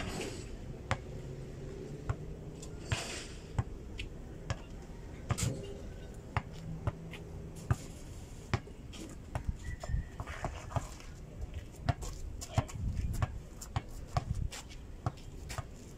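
Basketball bouncing and being dribbled on a packed-dirt court: a string of short, irregular thuds, coming more often near the end.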